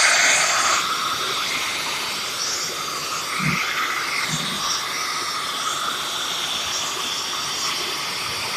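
JML turbo-powered 800-watt hand vacuum cleaner running steadily, a constant hiss of rushing air over the motor. Two soft low thumps come about three and a half and four and a half seconds in.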